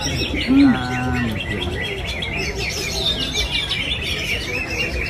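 Cucak ijo (greater green leafbirds) singing at once: fast, varied chirping and warbling phrases that run without pause. About half a second in, a short low call slides up and down and then holds one steady note for about a second.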